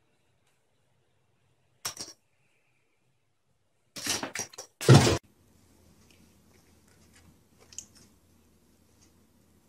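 A small toy quadcopter drone on a hardwood floor gives two short, loud bursts of whirring clatter, about four and five seconds in.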